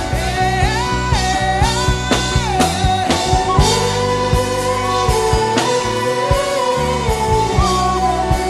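Music: a hummed melody of long held notes moving up and down in steps, over a bass line and a steady drum beat.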